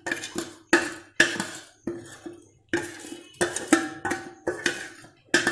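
Steel spoon scraping and knocking against a stainless steel plate and the rim of a steel pot: about a dozen sharp, ringing metal clinks at an uneven pace, as roasted tinni rice is pushed off the plate into hot milk.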